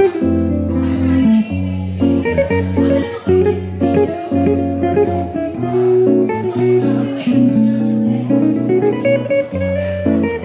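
Epiphone Broadway Elite hollow-body archtop electric guitar played fingerstyle through an amplifier: chords and melody notes over sustained bass notes.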